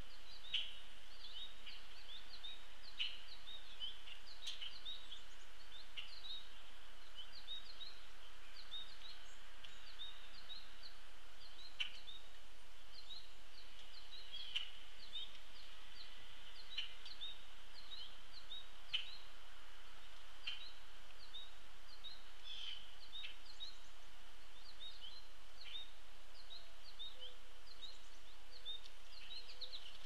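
Outdoor feeder-garden ambience: a steady high-pitched hum with many short bird chirps repeating over it, and a few sharp taps scattered through.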